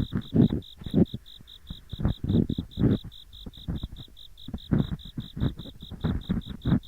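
Deep, rough ear-pick scraping inside both ears of a binaural microphone, in irregular strokes of varying length. Under it, autumn insects chirp steadily and rapidly, about five high chirps a second.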